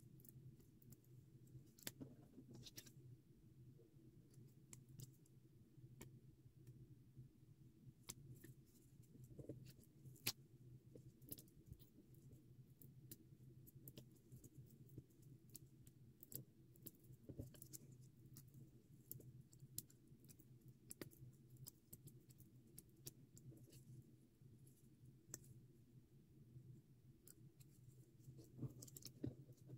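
Faint, irregular ticking and crackling of paper cutouts and adhesive foam squares being handled and pressed down, over a steady low hum.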